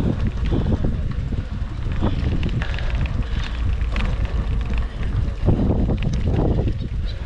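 Wind buffeting the microphone, a heavy low rumble throughout, with muffled voices breaking through about half a second in and again near the end.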